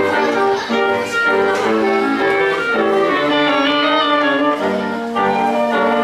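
Woodwind sextet of flute, oboe, clarinet, French horn, bassoon and piano playing a lively tune together, with quick short notes changing several times a second.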